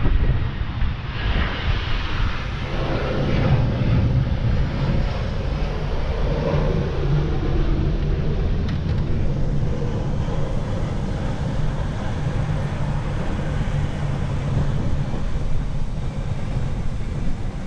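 Jet engines of a Boeing 737-800 passing low overhead on final approach, heard from inside a moving car over a steady low rumble of road and wind noise.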